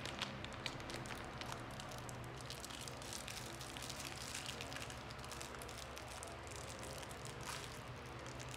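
Faint crackling and crinkling of a plastic gumball wrapper being twisted and bitten at while it refuses to open, over a steady low hum.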